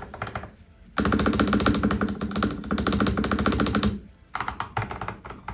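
Typing test on a MelGeek Pixel mechanical keyboard with stock Kailh-red-style linear switches: a quick burst of keystrokes, then a long fast run of clacking keys, a pause, and more keystrokes near the end. The stabilized keys are noisy enough that the typist judges the stabilizers need modding.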